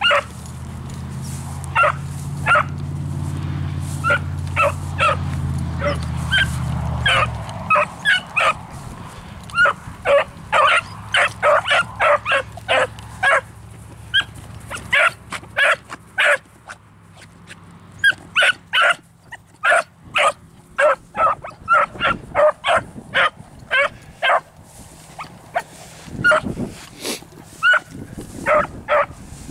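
Beagles barking in runs of short, sharp barks, two or three a second at their busiest, as the hounds work a scent trail. A low steady hum runs underneath for the first seven seconds or so.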